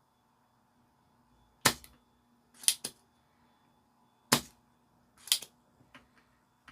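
Spring-loaded solder sucker (desoldering pump) being cocked and fired while desoldering a capacitor. It gives four loud, sharp snaps about a second apart, then a couple of lighter clicks near the end.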